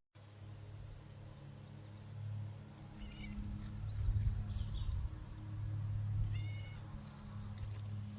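A Devon Rex cat making several short, high chirping meows, scattered a second or so apart, over a steady low hum.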